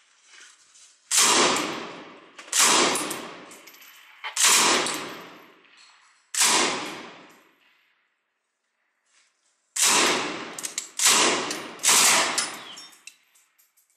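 Belt-fed machine gun fired as seven separate shots, each a sharp crack followed by about a second of echo. Three shots come in quick succession near the end, after a pause of about two seconds.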